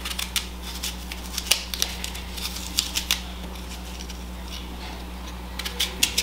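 Small knife cutting the core out of a green apple held in the hand: short, crisp cuts and scrapes at an irregular pace.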